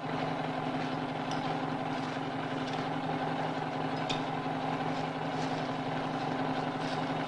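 An engine running steadily, giving a constant drone with a few faint clicks.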